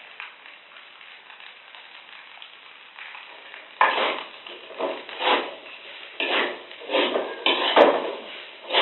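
Metal utensils scraping and stirring fried rice in a metal wok on a gas stove: a faint sizzle for the first few seconds, then several rough scraping strokes about a second apart.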